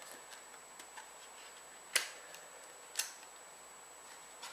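Two sharp clicks about a second apart, the first louder, as the Snow Leopard software box is handled and opened.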